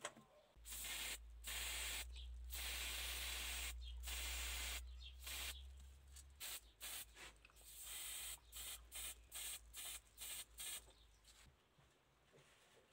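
Black spray paint hissing onto a small model car part. A long spray with a few short breaks gives way to a quick run of short bursts, and it stops near the end. A steady low hum runs underneath.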